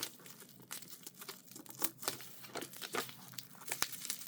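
Bubble wrap packaging being handled and pulled at by hand, with irregular crinkling and crackling of plastic.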